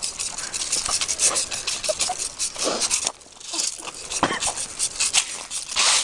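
Dry twigs of a branch dragged along a concrete sidewalk, a rapid scratchy scraping and crackling that lets up briefly about halfway through.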